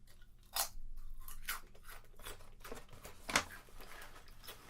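Potato chips crunching as they are chewed: a string of separate sharp crunches, the loudest about three and a half seconds in.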